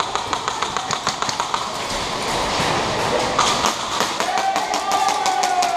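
Airsoft guns firing: quick strings of sharp clicking shots, several a second, that pause after about a second and a half and pick up again in the second half.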